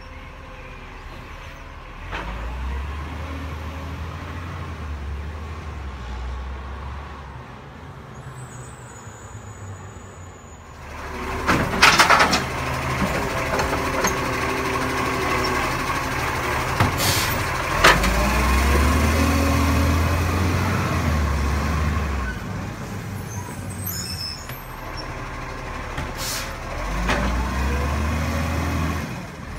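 Side-loader garbage truck working: its diesel engine repeatedly revs up and settles to drive the hydraulic bin-lifting arm, with pitch rising and falling. A few sharp hisses and knocks come as bins are lifted and tipped, the loudest about 12 seconds in.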